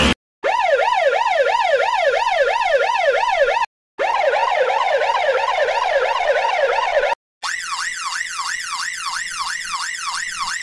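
Ambulance siren variations played one after another: three short bursts of fast rising-and-falling yelp, about three sweeps a second, separated by brief silences. The third is pitched about an octave higher than the first two.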